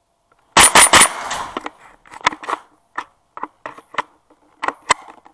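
Three loud, sharp cracks in quick succession about half a second in. They are followed by irregular footsteps on a bare, gritty concrete floor.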